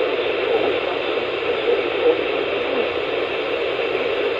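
Steady static hiss from a NOAA Weather Radio receiver.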